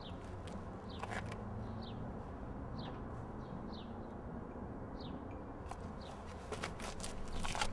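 Street ambience: a steady low rumble with a bird repeating short falling chirps about once a second. Footsteps on pavement come about a second in and again, closer together, near the end.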